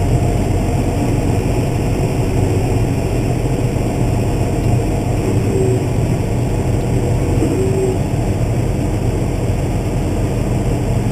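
Diesel engine of a large harvest-field tractor or combine running steadily while driving through the field, a constant low drone.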